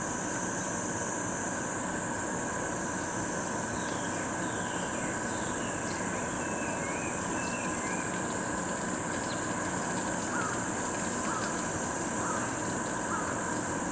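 Steady high-pitched drone of cicadas in summer, with short bird chirps in the middle and more small chirps near the end.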